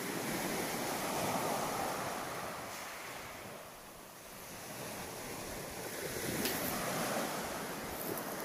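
Small waves breaking and washing up a pebble beach, the wash swelling, fading about halfway, then building again.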